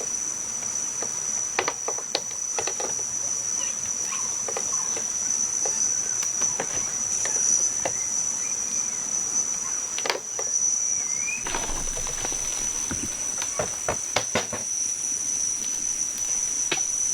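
Insects chirring in one steady high-pitched tone, with scattered knocks and clatters from a loose structure being taken apart by hand, more frequent in the second half.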